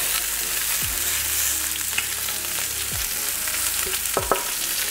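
Salmon fillets sizzling in hot oil in a cast iron pan, a steady frying hiss, with a couple of light clicks about two seconds in and near the end.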